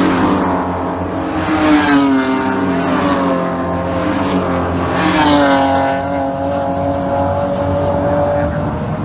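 PRO3 BMW E30 race car's inline-six engine under racing load, its revs climbing and dropping a couple of times through gear changes, then holding steady.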